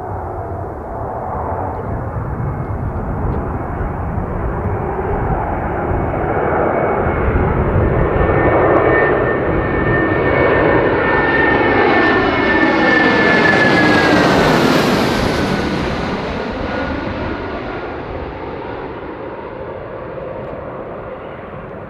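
Airbus A320-family twinjet on final approach with gear down, flying low overhead. Its jet engine noise builds to a peak, its high whine drops in pitch as it passes about two thirds of the way through, and then the noise fades as it recedes.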